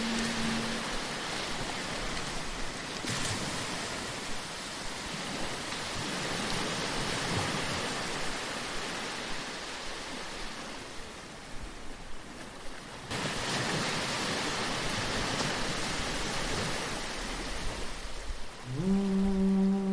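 Sea surf washing in a steady hiss that swells and ebbs, easing off for a moment past the middle. A held chanted note dies away just after the start, and another begins with an upward glide near the end, louder than the sea.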